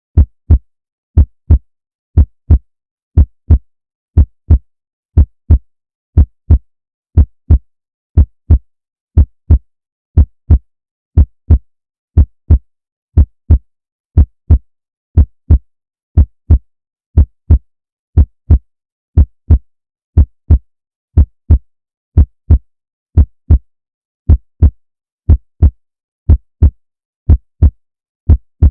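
Heartbeat: a steady lub-dub of paired deep thumps, about one beat a second, with silence between beats.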